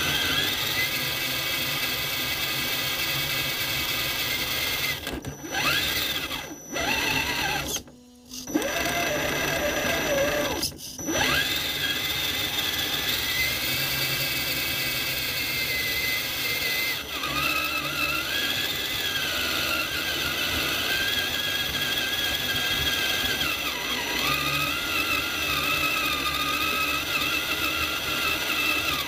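Electric motor and gear drivetrain of an Axial SCX10 Honcho 1/10-scale RC rock crawler whining, heard from inside the truck's body. The whine rises and falls in pitch with the throttle and cuts out briefly several times about a quarter to a third of the way in.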